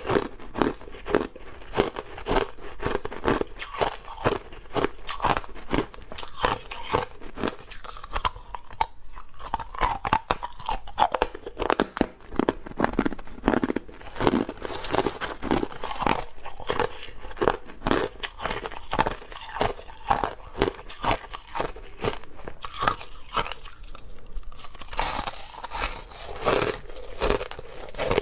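Close-up crunching of clear, hard crushed ice being bitten and chewed, a rapid, irregular run of sharp crunches several times a second, with brighter, crisper stretches midway and near the end.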